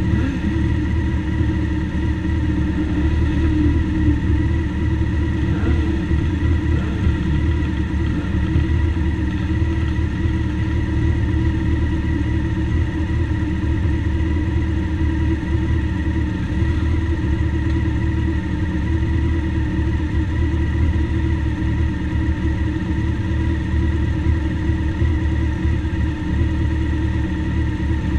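Motorcycle engines idling together in a steady low rumble, with a brief rev rising about six seconds in.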